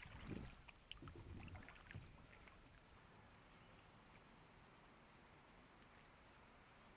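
Faint, steady high-pitched drone of insects, with a few soft knocks and splashes from paddling the kayak in the first two seconds.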